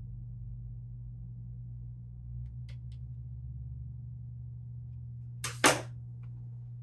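Plastic sunglasses frames handled and set down on a table: a few light clicks, then a sharp double clack near the end, over a low steady electrical hum.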